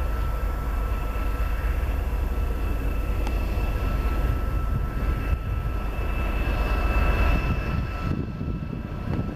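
TEM2 diesel-electric locomotive's engine running as it approaches slowly, a steady low rumble with a thin, steady high whine above it.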